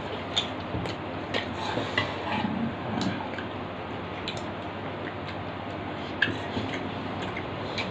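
Stainless-steel plates and a steel serving spoon clinking as two people eat by hand: scattered light clinks and scrapes, the sharpest a little after six seconds, over a steady background hiss.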